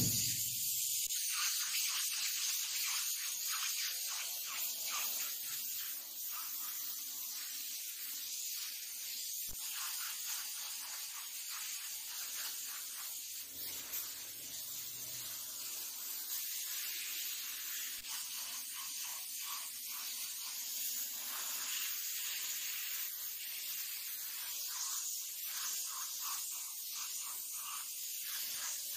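Compressed-air gravity-feed paint spray gun hissing steadily as it sprays paint onto a wall.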